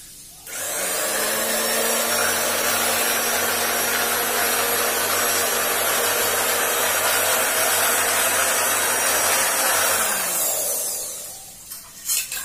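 Octa Takayama electric cloth cutting machine switched on, its motor running with a steady high whine as the blade cuts through the fabric. About ten seconds in it is switched off and winds down, falling in pitch, followed by a few short knocks.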